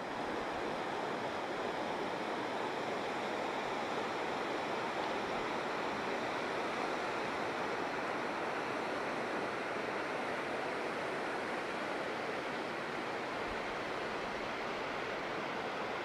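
Steady rush of white water tumbling over rocks in a creek, running high with water discharged from a hydroelectric powerhouse's turbine.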